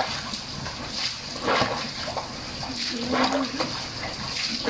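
Water pouring from above and splashing into floodwater covering a floor, the splashing swelling a few times. A short low cry or voice sounds about three seconds in.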